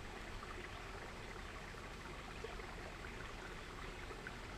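Small creek running, a steady, even rush of flowing water.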